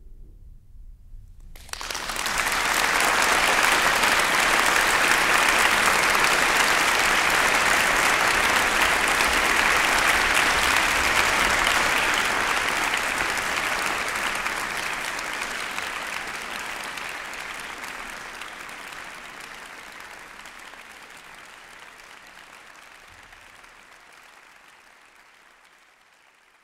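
Applause from a large crowd, coming in suddenly about a second and a half in, holding steady, then slowly fading out.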